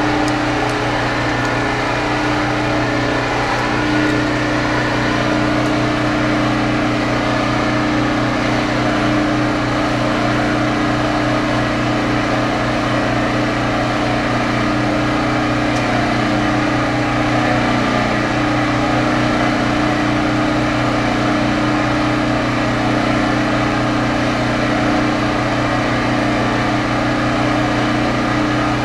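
A steady motor drone, like a small engine running at a constant speed, holding one pitch throughout over a continuous hiss.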